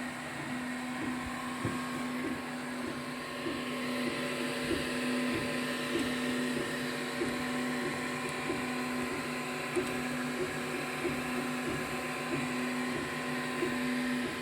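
3D printer running mid-print: the steady hum of its cooling fans, with light ticks about every half second.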